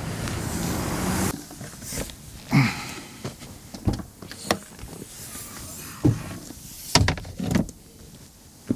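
A rushing noise for the first second or so, then a series of about six separate clunks and thuds spread over the following seconds.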